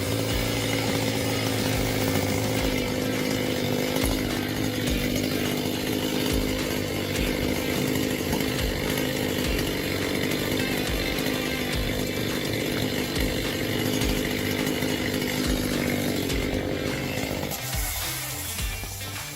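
Chainsaw running at a steady pitch; about two seconds before the end its low hum drops away and the sound changes.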